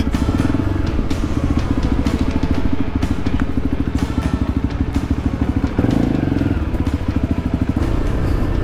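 Adventure motorcycle engine running under way, heard from the rider's own bike, with a fast even pulse of firing strokes. Its note gets louder about six seconds in.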